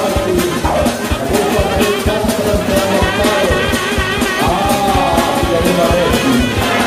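Music with a steady drum beat and a voice singing.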